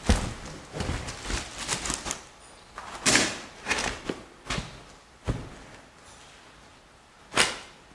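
Scattered short knocks and scuffing noises in a large empty hall, with a sharp knock at the start and two louder scuffs about three seconds in and near the end.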